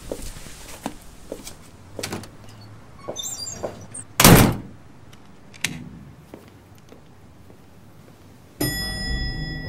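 Footsteps and a rattle of the latch, then an apartment front door shutting with a heavy thunk about four seconds in, followed by a small click. Near the end, a steady low hum with ringing tones starts abruptly.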